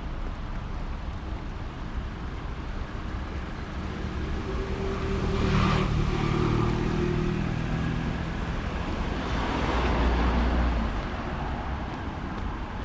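Road traffic: a steady low rumble, with one vehicle passing about five seconds in and another about ten seconds in.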